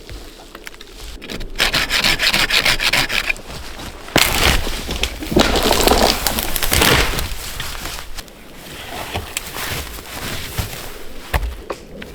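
Small coarse-toothed hand saw cutting into a dry standing tree in quick back-and-forth strokes, loudest in the middle and quieter toward the end.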